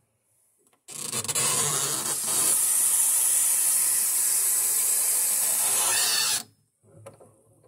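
Bathroom sink faucet running water into a glass bottle, a steady rush that starts abruptly about a second in and is shut off about five and a half seconds later.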